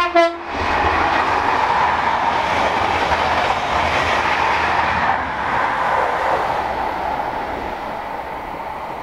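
A brief horn blast from the leading HST Class 43 power car right at the start, then the test train passing at speed. The running noise of wheels on rail is loudest from about one to six seconds in and fades toward the end.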